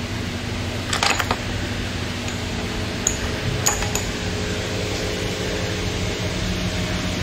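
Metal hand tools clinking: a ratchet and socket handled on the engine's bolts, with a quick cluster of clicks about a second in and a few single ringing clinks later. A steady low hum lies under it.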